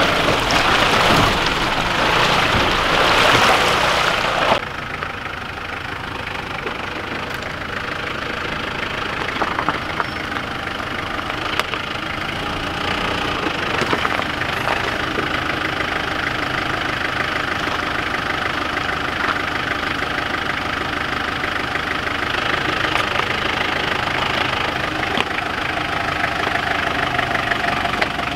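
Loud rushing water and tyre noise as a 4x4 drives along a flooded track, cutting off abruptly after about four and a half seconds. Then the 4x4's engine runs steadily at low revs as it crawls slowly up a rocky ledge.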